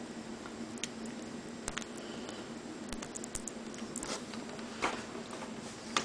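Scattered small clicks and light scratching of hands working a laptop's screen flex cable and its connector, over a steady low hum.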